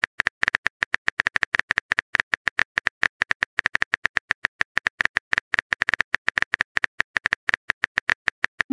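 Phone keyboard tap sound effects: a rapid, even run of short clicks, several a second, one for each letter of a text message typed out in a texting-story animation.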